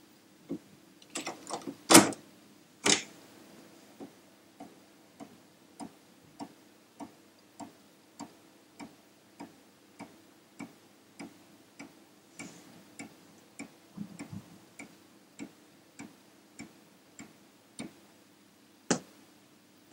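Amiga 1000 internal 3.5-inch floppy drive reading the Kickstart disk. A few loud clunks and clicks come in the first three seconds as the disk goes in. Then the head steps track to track with an even tick about every 0.6 s over a faint steady motor hum, and a louder click comes near the end.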